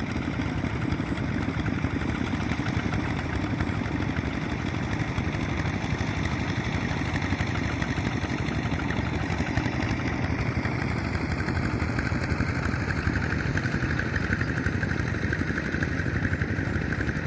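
Two-wheel walking tractor's single-cylinder diesel engine running steadily under load as it levels a flooded rice paddy.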